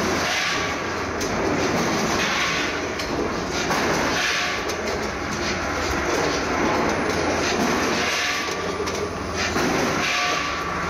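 Automatic weighing and bagging line running: a steady mechanical rumble and rattle of the multihead weigher and vertical form-fill-seal machine, swelling every second or two.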